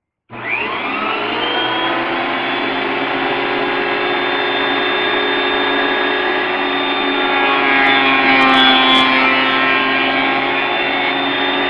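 Benchtop thickness planer starting up with a quick rising whine, then running steadily as oak pallet slats are fed through. It gets a little louder and rougher for a couple of seconds about two-thirds through.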